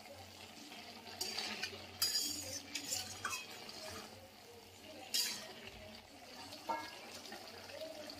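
Metal spatula stirring vegetables in a steel wok, with about five short scrapes and clinks of the spatula against the pan.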